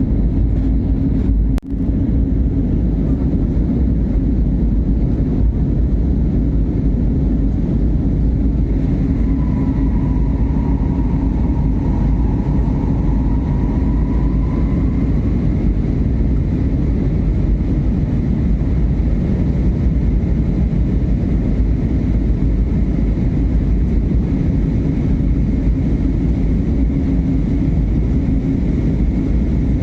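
Jet airliner during takeoff, a loud, steady rumble with a steady hum over it. It drops out for an instant about a second and a half in, and a faint whine sits on top for a few seconds near the middle.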